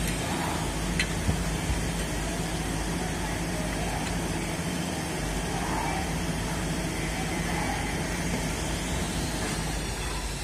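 Steady background hum and noise, with a few light metallic clicks about a second in as nuts and tools are handled on a dismantled air-compressor cylinder head.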